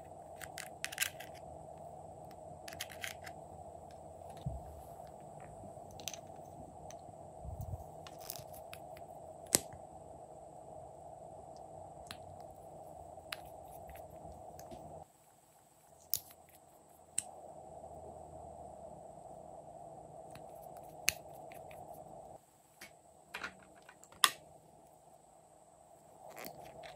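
Scattered sharp clicks and taps of small plastic cosmetic compacts and containers being opened and handled, and a metal spatula scraping and tapping, over a steady hum that drops out twice.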